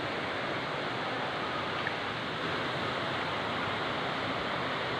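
River water rushing over a low weir: a steady, even rush of flowing water.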